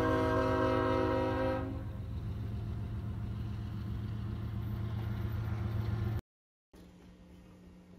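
Locomotive air horn sounding a steady chord of several notes, which stops about one and a half seconds in, followed by the low rumble of the passing Canadian Pacific freight train's diesel locomotives. The rumble cuts out suddenly about six seconds in, leaving a faint hum.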